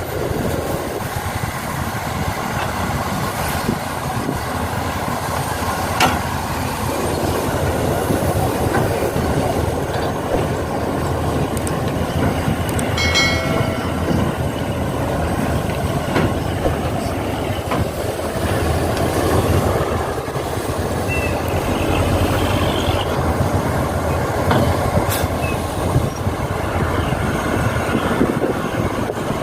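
Radio-controlled model excavators and dump trucks working: a steady whir of small electric motors and gears with clattering, scattered clicks and a brief squeal about halfway through.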